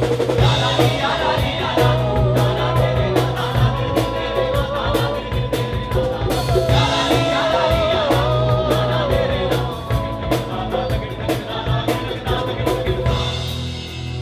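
Band music with a drum-kit beat, a strong bass and a bending, sliding melodic lead line over it, easing off a little near the end.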